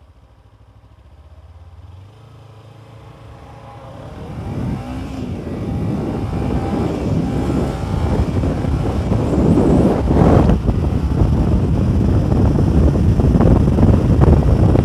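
Kawasaki Ninja 300's parallel-twin engine running low, then pulling away and accelerating hard, getting louder from about four seconds in. Wind rushes over the helmet microphone as speed builds.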